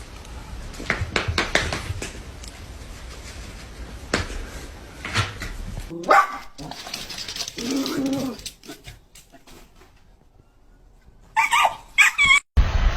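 A dog barking and whining, with short high yips near the end, among scattered knocks and clicks.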